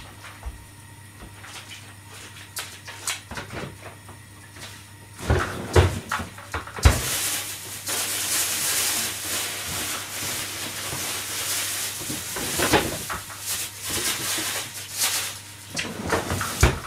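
Kitchen clatter: a few light clicks, then knocks and clanks of pots or cupboard doors, followed about seven seconds in by a steady rushing hiss that lasts around ten seconds, with more knocks over it.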